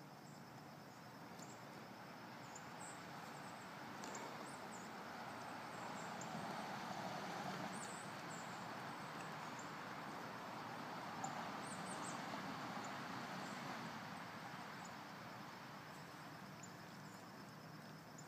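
Outdoor ambience: a steady rushing noise that swells through the middle and eases off again, with faint, scattered high chirps of small birds.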